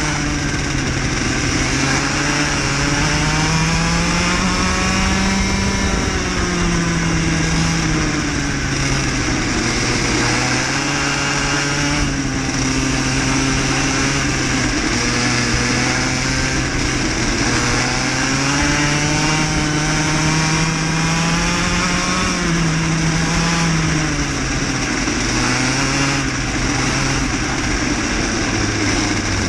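Cadet kart engine heard close up from onboard, revving up along the straights and dropping sharply as the driver lifts for corners, several times over, with a steady hiss from the wet track underneath.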